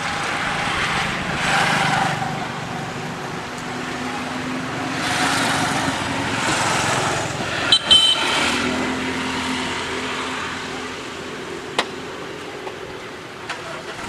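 Road traffic passing: swells of vehicle noise that rise and fade, once about a second in and again around the middle, over a steady engine hum, with a few sharp clicks.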